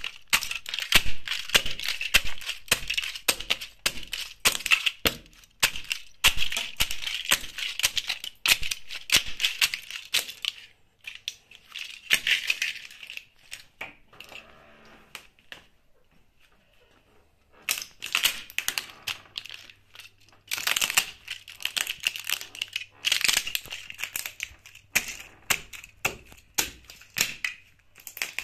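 Plastic scale model aircraft cracking and snapping under espadrille wedge sandals as they are stamped on and ground underfoot: a dense run of sharp cracks, a lull of several seconds in the middle, then the crunching starts again.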